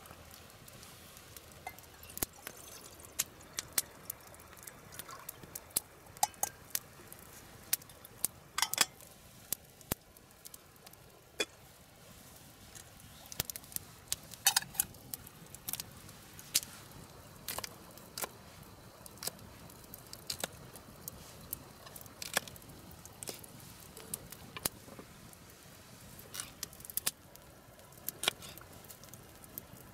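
Open wood campfire crackling: irregular sharp pops and snaps over a faint steady hiss.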